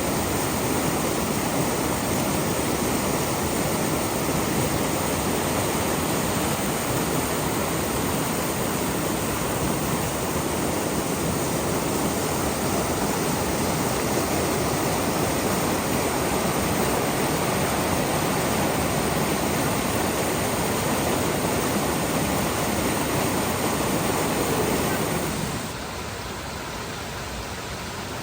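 Steady rushing of the Ōtaki waterfall. About 25 seconds in it drops suddenly to a quieter, thinner rush.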